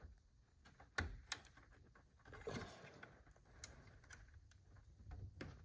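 Faint clicks and handling noise as a graphics card's second power cable connector is worked into its socket, with two sharp clicks about a second in.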